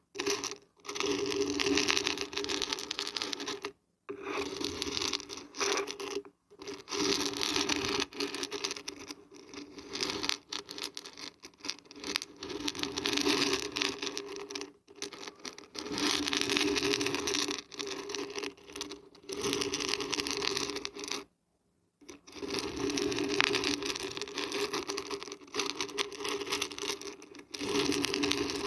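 Dried beans and dried barberries being shaken, a dense rattling that comes in spells of a few seconds with short breaks between them.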